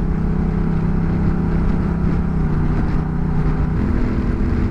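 Honda Rebel 1100's parallel-twin engine running as the motorcycle is ridden, heard from on the bike. Its note shifts in pitch about halfway through and again near the end.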